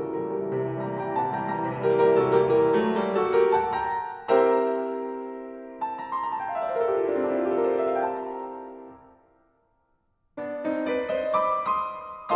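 Background piano music. Near the middle a run of notes descends; the music fades out to a brief silence about ten seconds in, then starts again.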